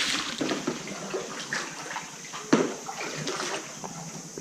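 Kayak paddle strokes splashing and sloshing in the water, a few irregular strokes, the loudest about two and a half seconds in.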